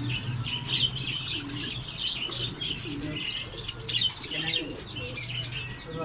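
A caged flock of budgerigars (Australian parakeets) chattering and chirping non-stop, many birds calling over one another. A steady low hum runs underneath.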